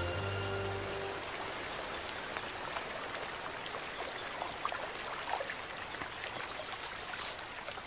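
Creek water running over rocks: a steady rush with scattered small splashes. A held music chord dies away about a second in.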